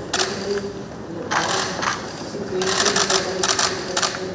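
Camera shutters clicking in rapid bursts, three clusters of fast clicks, over a low murmur of voices.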